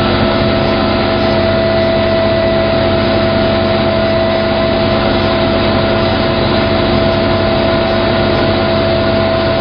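Armored riot control truck's engine running at raised idle to drive the water cannon pump, heard inside the cab: a loud, steady drone with a constant whine.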